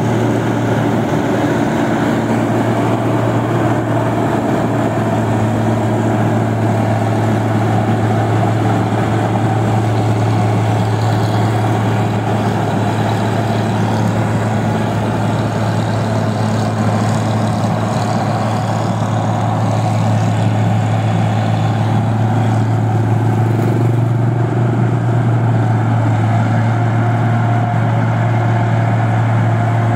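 Engine of a New Holland Clayson 1545 combine harvester running steadily while the machine crawls on its half-tracks through a muddy rice paddy: a loud, even, low drone that holds without a break.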